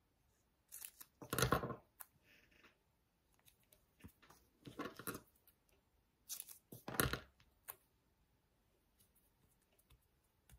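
Double-sided foam tape being pulled off its roll and cut with scissors: a few short, scratchy rasps, the loudest about a second and a half and seven seconds in.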